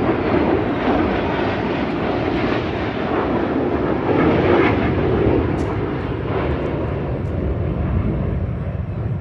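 Jet engine noise from US Air Force Thunderbirds F-16 Fighting Falcons passing low overhead, very loud. It swells to its loudest about four to five seconds in, then eases slightly.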